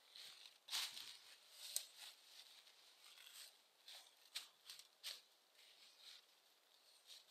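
Faint, irregular footsteps rustling in dry fallen leaves as a person climbs a steep slope.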